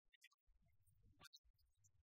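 Near silence: only faint, scattered low rumbles and small clicks.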